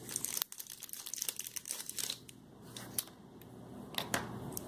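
Packaging crinkling and rustling as small marker-style makeup pens are handled, with a few sharp clicks.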